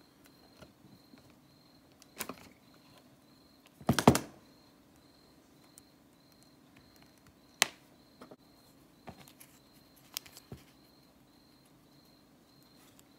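Metal pliers being worked by hand: a few sharp clicks and snaps, the loudest cluster about four seconds in and single ones near two, seven and a half and ten seconds.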